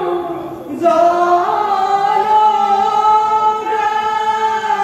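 Dihanam, Assamese Vaishnavite devotional chant, sung in unison by a group of young men and women without instruments. They hold long, slowly gliding notes, with a brief break a little under a second in before the next line begins.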